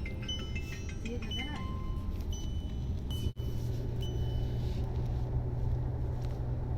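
Inside a moving car: steady engine and road hum, with a short high electronic warning beep repeating about once a second from the dashboard.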